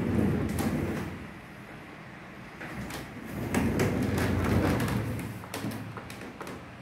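Low rumbling with scattered clicks in two swells, one at the start and a longer one from about three and a half to five seconds in: handling and movement noise.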